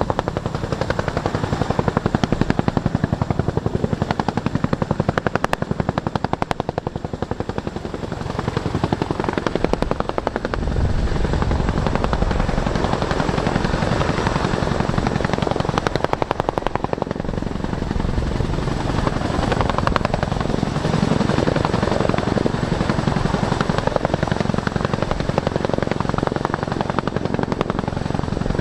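Boeing CH-47 Chinook's tandem three-blade rotors turning, with a rapid blade chop over the running of its two Lycoming T55 turboshaft engines. The sound grows louder and deeper about ten seconds in.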